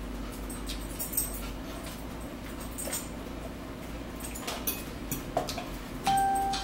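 A metal fork tapping and scraping against a ceramic bowl in scattered light clicks, over a steady low hum. About six seconds in, a loud, steady high tone starts and holds.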